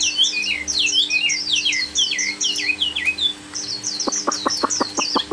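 Chinese hwamei singing a fast string of varied whistled notes, mostly sweeping downward, with a short break a little past the middle. About four seconds in, a quick row of short low pulses comes in under the song.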